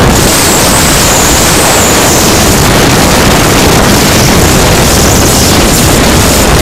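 Loud, steady rush of wind buffeting the microphone.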